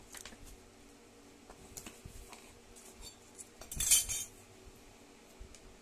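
Light clicks and knocks of flat-pack assembly parts being handled on a cardboard box, with a louder rustling scrape about four seconds in as a paper instruction sheet is picked up.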